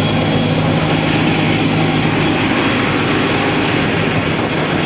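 A workboat's engine running steadily while the boat is underway, a low steady hum over the rush of water along the hull.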